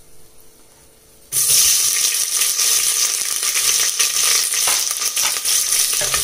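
Sliced onions tipped into hot oil in a pressure cooker, sizzling loudly from about a second in, with scattered light clicks through the frying.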